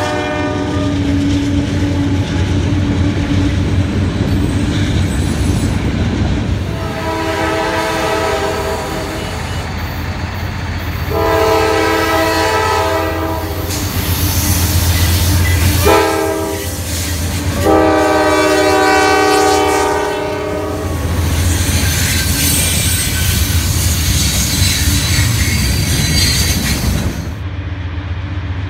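Diesel freight locomotive horn sounding two long blasts, a short one and a long one, the standard grade-crossing signal, over the steady low rumble of the train.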